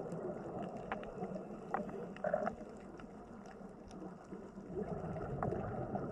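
Underwater ambience: a low, steady rush of water with scattered sharp clicks, and a brief squeak a little over two seconds in.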